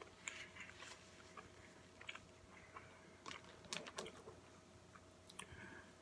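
Faint close-up chewing and biting of a burger topped with crispy onion rings, with scattered short crackles and clicks that are busiest a little past the middle, mixed with crinkling of the paper wrapper as it is handled.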